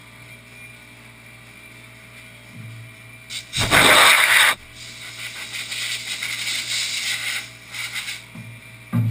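A hand-held spray gun on a hose blasting into a CNC mill enclosure: a loud hiss starts about three and a half seconds in and lasts about a second, then a softer, uneven hiss goes on for about three seconds. A low steady hum runs underneath at the start.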